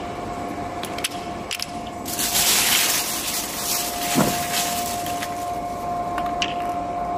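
Steel balls and plastic spacer blocks clicking against one another as they are pushed by hand into the raceway of a slewing ring bearing. About two seconds in there is a burst of rustling lasting a couple of seconds, and a steady hum runs underneath.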